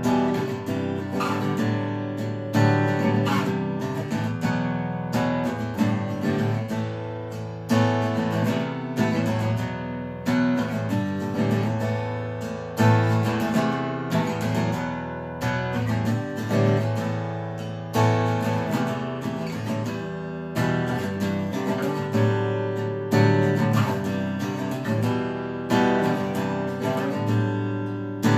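Cort L100 NS steel-string acoustic guitar played solo, chords struck in a steady rhythm with the harmony changing every few seconds, with no singing.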